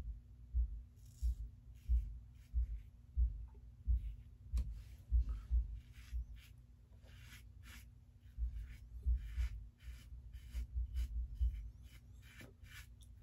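Aylsworth DrakKant stainless-steel open-comb safety razor scraping through lathered stubble in short strokes, about two a second, pausing for about two seconds midway.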